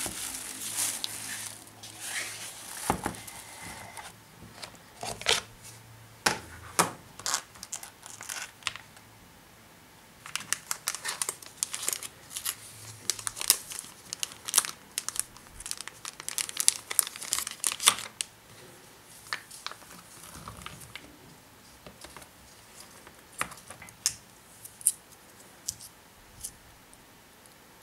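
Thin plastic packaging of a gouache paint set crinkling and tearing as it is handled: scattered sharp crackles, a dense run of them in the middle, then sparser ones near the end.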